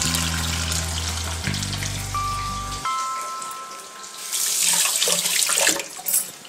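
Black-lentil batuk batter deep-frying in hot oil in a kadai, with a steady sizzle that swells sharply about four and a half seconds in as fresh batter hits the oil, then fades near the end. Background music with held low notes plays over the first three seconds.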